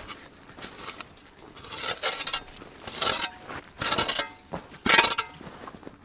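Shovel blade digging and scraping frozen, snowy earth, backfilling a burrow: a run of scrapes and scoops, the loudest four about a second apart in the second half, each with a short metallic ring.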